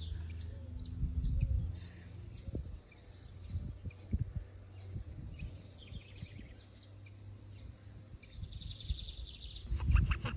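Small birds chirping again and again over a steady high whine, with a short buzzy trill near the end. Scattered low knocks run underneath, with a louder thump near the end.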